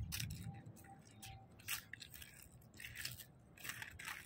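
Inline skate wheels rasping faintly on rough asphalt in short, irregular scrapes, one with each unsteady stride of a beginner skater.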